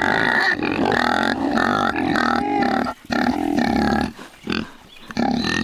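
Several pigs grunting. The sound breaks off briefly about three seconds in and goes quieter for about a second just after.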